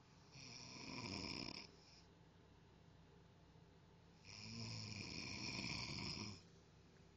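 A person snoring: two long snores, each about two seconds, one soon after the start and one past the middle.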